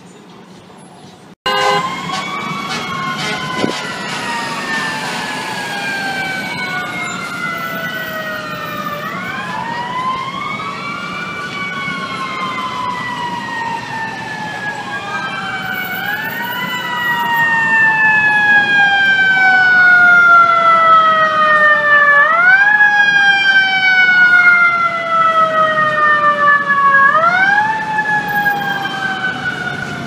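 Several FDNY fire truck and ambulance sirens wailing together, starting suddenly a second or so in. Each siren rises quickly and falls slowly in long overlapping sweeps, and they grow louder about halfway through.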